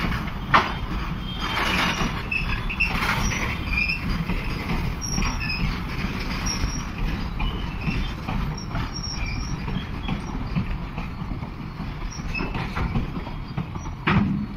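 Container freight train wagons rolling past at close range, a steady rumble and clatter with short high squeals from the wheels. A sharp knock about half a second in and a louder one near the end, as the brake van passes.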